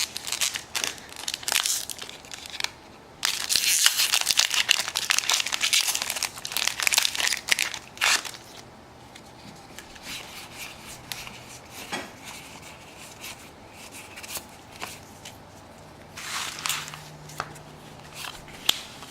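Foil booster-pack wrapper crinkling as it is torn open and handled, loudest for several seconds from about three seconds in and again briefly near the end, with light clicks and rustles between.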